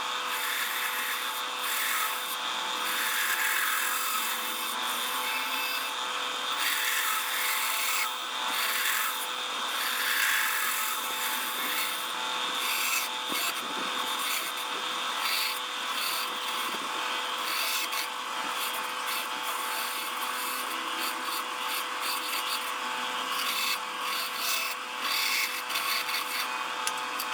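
Electric saw running and cutting through wood: a steady motor hum and whine under the rasp of the blade in the grain, which swells and eases as the cut goes on.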